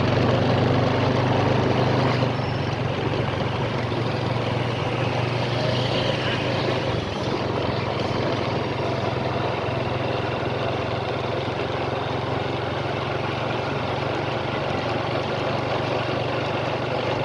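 Steady low engine-like rumble over a constant noisy background, like idling or passing vehicles, with no sharp bangs.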